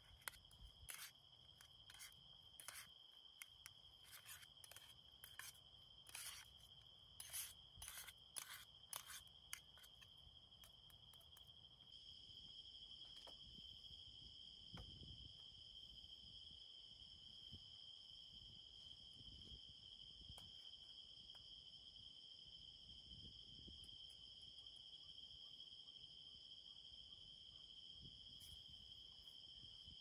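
Faint, steady high trill of night insects, even in pitch throughout. Irregular light clicks over the first ten seconds.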